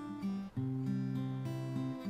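Acoustic guitar being played in strummed chords, with a new chord struck about half a second in.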